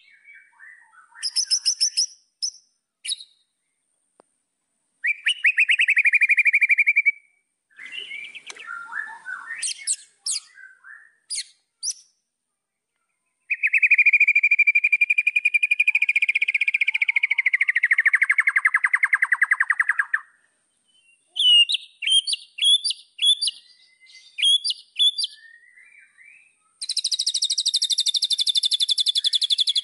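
White-rumped shama singing a varied, loud song: short bursts of fast repeated notes, a long buzzy trill in the middle that slides lower, a run of sharp separate notes, and a dense high trill near the end.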